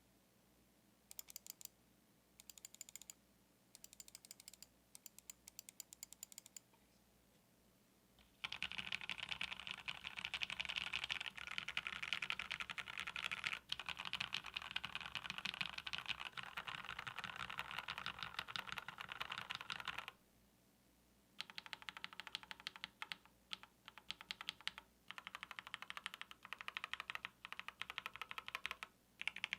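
Typing on a KBD67 Lite R2 65% mechanical keyboard fitted with Gateron Yellow linear switches. A few short runs of light keystrokes come first, then fast continuous typing, a brief pause around the twenty-second mark, and more typing after it.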